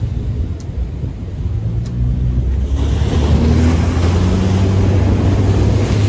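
Ocean surf rolling in and breaking against shoreline rocks, swelling into a loud rushing hiss from about two and a half seconds in as a wave crashes and sprays. Wind rumbles on the microphone.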